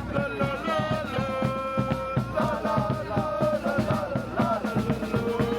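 Music: a sung melody over a steady drum beat.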